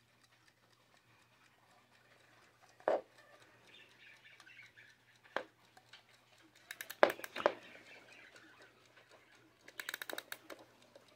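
Sabre wind-up alarm clock being handled and wound: faint ticking at first, a few sharp knocks as it is turned over, then a quick run of ratchet clicks from the winding key on the back, lasting about a second near the end.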